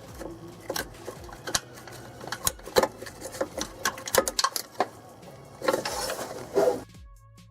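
Irregular metallic clicks and clanks of hand-tool work under a truck, with a short scraping rush near the end. Music comes in just before the end.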